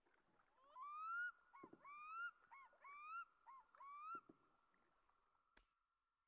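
A dog whining: a string of six or seven short, rising-and-falling whimpers over a faint steady whine, with a couple of dull knocks among them and a sharp click near the end.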